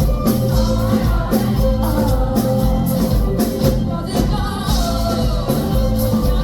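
Live band music played loud, with a singer's voice over a steady drum beat and bass.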